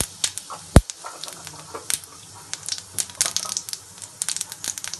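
Cumin seeds frying in hot mustard oil in a steel kadhai for a tadka, with irregular sharp crackles and pops over a faint sizzle. One loud knock comes about a second in.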